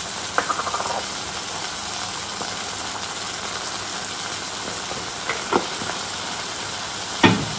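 Potatoes, onion and small tomatoes frying in hot oil in a cast-iron kadai: a steady sizzle. A short rattle about half a second in, and a few sharp clicks near the end.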